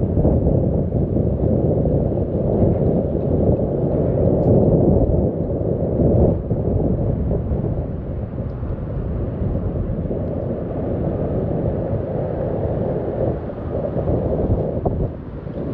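Wind buffeting the microphone on the deck of a moving river cruise ship: a loud, uneven low rumble that dips briefly near the end.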